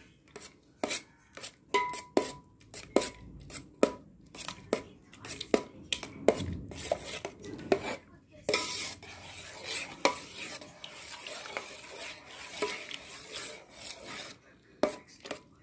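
Steel spoon stirring and scraping through lumps of freshly churned butter in buttermilk in a steel bowl, with frequent sharp clinks of the spoon against the bowl. A stretch of steadier scraping comes in the middle.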